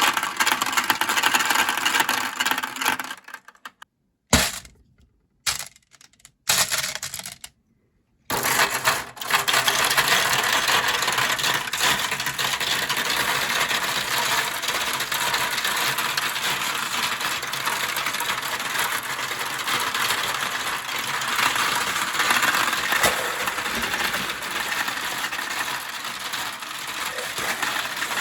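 Many marbles rolling and clattering down a plastic Kumikumi Slope marble-run track in a dense, continuous rattle. It drops out briefly several times between about 3 and 8 seconds in, then runs on without a break.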